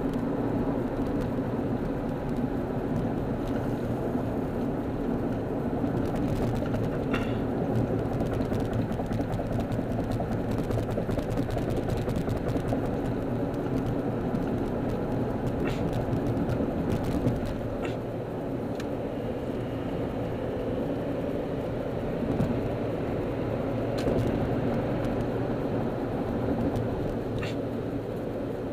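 Steady in-cabin drone of a car cruising at freeway speed: engine hum with tyre and wind noise, and a few brief faint clicks.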